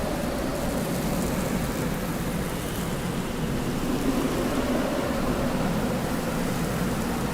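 Desert wind blowing steadily: a dense rushing noise with faint low moaning tones that slowly waver in pitch.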